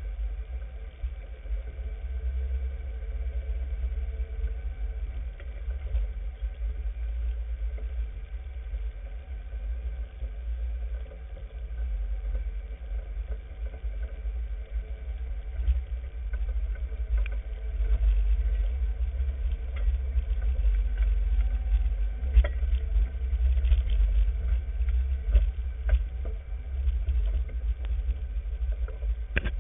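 Off-road vehicle driving slowly along a rough dirt trail: a steady low engine and body rumble, with scattered knocks and rattles from bumps, more of them in the second half.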